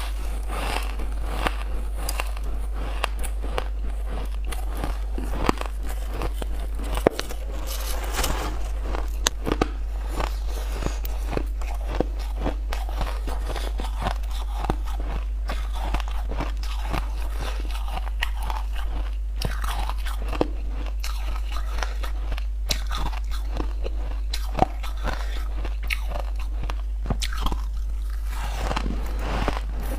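Close-miked biting and chewing of frosty white ice chunks: a dense, irregular run of sharp crunches and crackles over a steady low hum.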